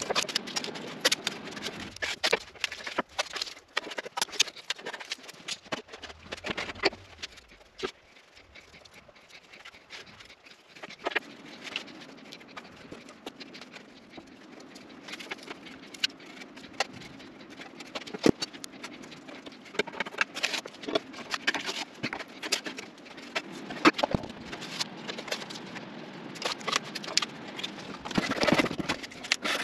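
Blue painter's tape being pulled off the roll and pressed along the seams of primed sheet metal, making a string of short crackles, scrapes and taps. A steady low hum is behind it from about a third of the way in.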